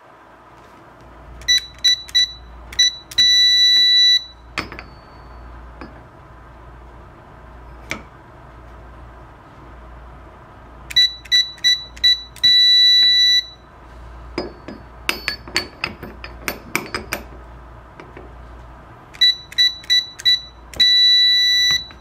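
Enforcer SK-1123 stainless keypad beeping as codes are keyed in: a run of short beeps, one per key press, ending in a long beep of about a second as the code is accepted and the output switches. This happens three times. Between the runs come scattered clicks from the handle and lock hardware.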